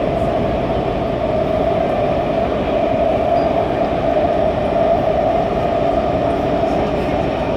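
Kaohsiung MRT train running, heard at the gangway connection between two cars: a steady rumble of wheels and running gear with a constant mid-pitched drone.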